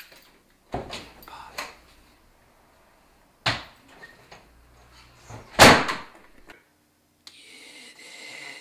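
A door being unlocked and opened, its handle, lock and security chain clattering in several separate knocks, the loudest a sharp bang about five and a half seconds in. A steady hiss follows near the end.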